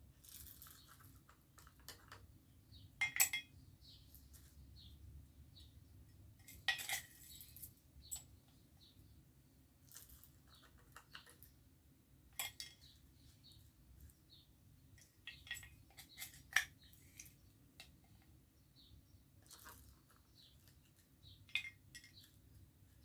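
Irregular clinks and clicks of hard small objects and metal parts being handled at a hand-crank coffee grinder, with sharper clinks about three, seven, twelve and sixteen seconds in.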